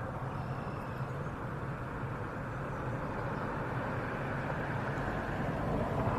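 Steady rumble of road traffic, growing a little louder near the end as a vehicle passes close by.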